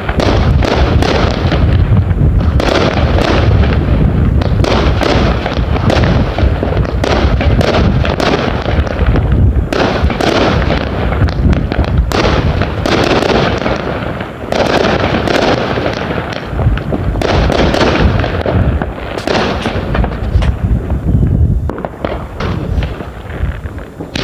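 Fireworks going off in a dense, loud barrage: rapid bangs and crackling, many a second, with short lulls about midway and a little later.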